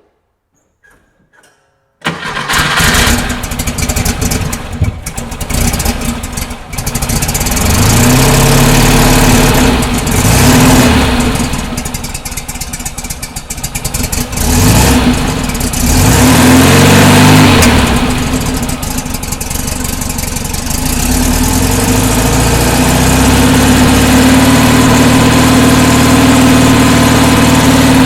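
1968 Porsche 912's rebuilt air-cooled flat-four engine starting about two seconds in and running unevenly for a few seconds. It is then revved up and down several times and settles into a steady idle.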